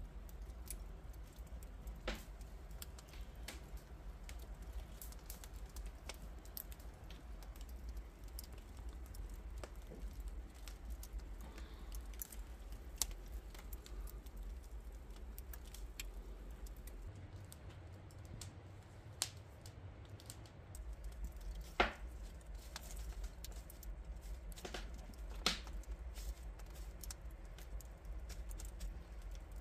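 Wood fire crackling, with irregular sharp clicks and a few louder pops, over a low steady rumble.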